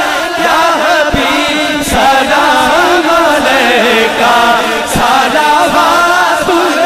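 A man's voice singing a naat, devotional poetry in praise of the Prophet, in long melodic chant-like lines through an amplified microphone.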